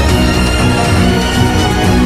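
Background music at a steady level, with many sustained notes layered together.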